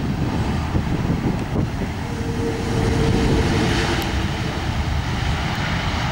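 Airbus A330 twin-jet airliner rolling out just after touchdown: a steady roar of its jet engines mixed with wind rumble on the microphone. A droning tone comes in about two seconds in, and the noise swells around the middle.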